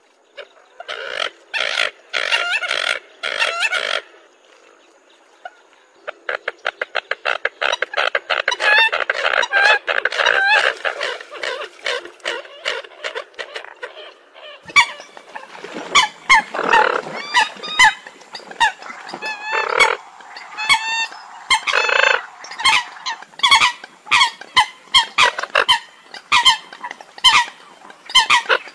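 Eurasian coots calling: short, repeated honking calls in quick runs, with many sharp high notes in the last half. The background changes abruptly a few times, as between spliced recordings.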